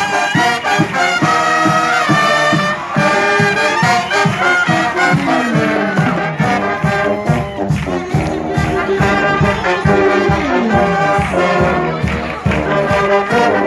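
Marching band playing: trumpets and trombones over a steady drum beat, with a couple of falling trombone slides.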